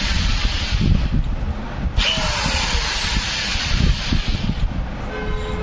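Corded electric drill spinning a wire inside a metal EGR pipe, the wire scraping out carbon deposits. It runs in two bursts: the first stops under a second in, the second starts abruptly about two seconds in and stops about two and a half seconds later.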